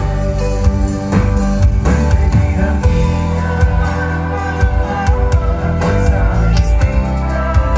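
Live band music through a concert PA, heard from the crowd: a singing voice over electric guitars, a strong bass line and regular drum hits.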